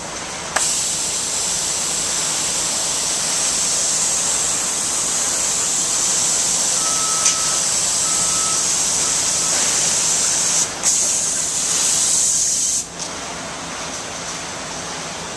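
Steady high hiss of compressed-air spraying from an automatic water-based adhesive spraying system. It drops out briefly a few times and settles lower near the end. Three short electronic beeps, about a second apart, sound a little past the middle.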